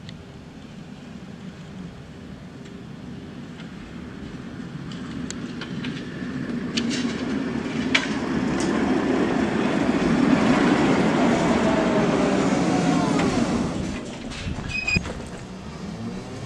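Tram running along its rails, the rolling noise growing louder over the first ten seconds or so. There are a few sharp knocks from the wheels and a wavering whine, then it eases off about fourteen seconds in.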